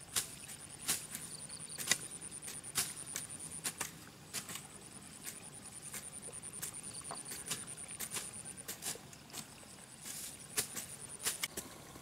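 Metal garden rake and hoe working dry, stony soil: irregular sharp scrapes and knocks, about two a second.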